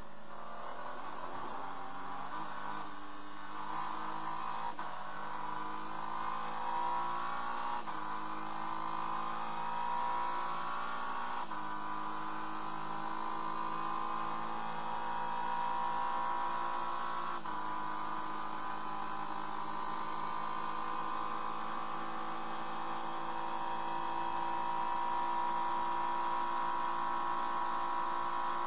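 Acura NSX GT3 race car's twin-turbo V6 heard from inside the cockpit, pulling steadily at moderate revs. Its pitch climbs over the first several seconds, then steps abruptly a few times as it changes gear.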